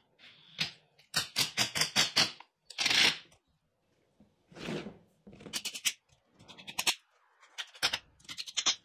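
Cordless impact driver hammering in several short bursts as it tightens the bolts on a steel flat-bar chair-leg frame, with a couple of brief hissing noises between bursts.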